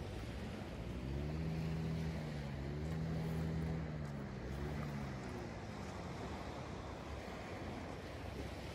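An engine hum passes by between about one and six seconds in, its pitch rising slightly and then falling as it fades. Underneath is a steady wash of surf and wind.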